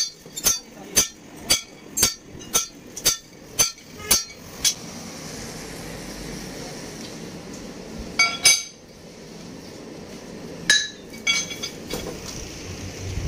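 Sledgehammer blows on a steel leaf-spring leaf laid on an anvil, about two ringing strikes a second, stopping about four and a half seconds in. After that come a few scattered metal clanks and clinks, twice near the middle and several near the end.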